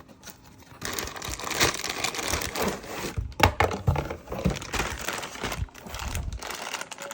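Packaging of a fog lamp wiring kit being handled and opened: crinkling and rustling with a few sharp clicks, starting about a second in and dying down near the end.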